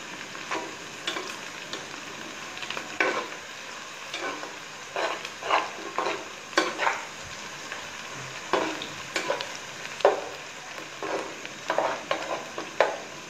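Sliced onions sizzling in hot oil in a large metal pot, being fried until browned, while a metal spatula stirs them, scraping and clacking against the pot every second or so.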